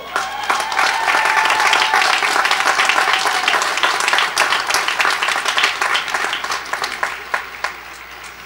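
Large audience applauding, the clapping slowly dying away over the last few seconds.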